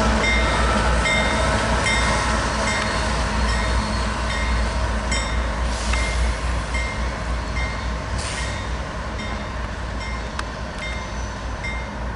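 Union Pacific diesel locomotive's Graham White electronic bell ringing steadily, about three strikes every two seconds, over the low rumble of the passing train, which slowly gets quieter.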